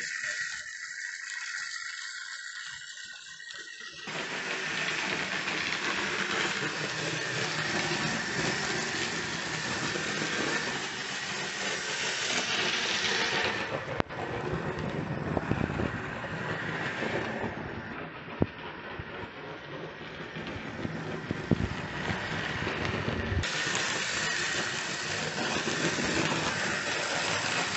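Hornby OO-gauge model of an LMS Stanier Class 5 4-6-0 running round the track: its small electric motor whirring and its wheels rolling on the rails in a steady rushing hiss, with a few sharp clicks. The sound gets louder about four seconds in.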